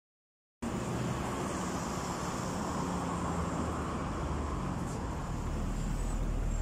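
Street traffic noise and the low steady engine rumble of a city bus pulling in to the stop, growing slowly louder toward the end. It starts abruptly about half a second in, after dead silence.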